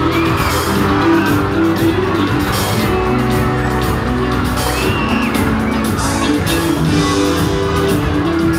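Loud amplified band music with a steady beat, with children in the audience shouting and whooping now and then.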